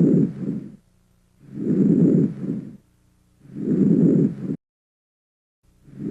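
Vesicular breath sounds heard through a stethoscope over the chest: a low-pitched, murmur-like breath noise that swells and fades with each breath and repeats about every two seconds. This is the normal breath sound of healthy peripheral lung tissue.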